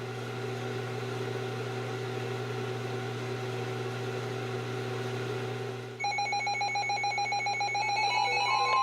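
A steady hum, then about six seconds in weather alert radios start sounding their alarms: rapid pulsing beeps, joined near the end by a steady high tone. The alarms signal an incoming flood warning.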